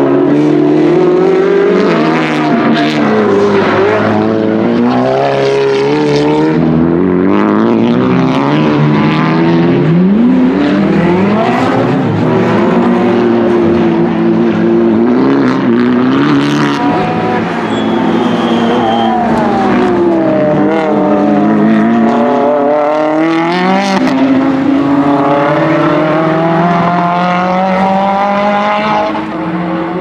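Engines of GT and touring race cars at racing revs, more than one heard at once. The pitch climbs and drops again and again as the cars accelerate, change gear and brake.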